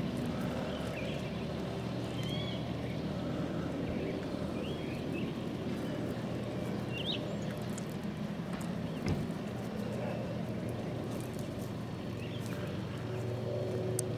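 A steady low mechanical hum of a running motor, with a few short bird chirps over it in the first half and scattered light clicks near the end.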